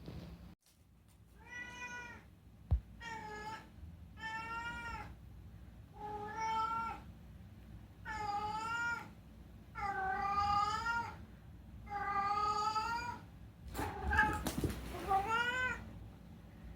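A domestic cat meowing repeatedly, about nine drawn-out meows of roughly a second each, a few of them bending up and down in pitch. A single sharp click sounds between the first and second meows.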